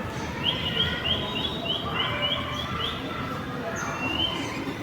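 Small bird chirping: a quick run of short rising chirps, about four a second, then a few slower, longer ones near the end.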